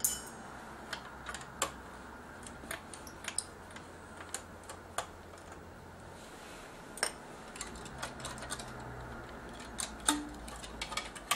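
Irregular light clicks and taps of fingers handling a camcorder's main circuit board and unclipping its ribbon-cable connectors, a few scattered snaps at a time.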